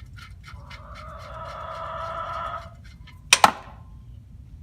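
A few quick ratchet clicks at the start, then a rooster crowing for about two seconds. About three seconds in come two sharp, loud knocks close together, the loudest sound here.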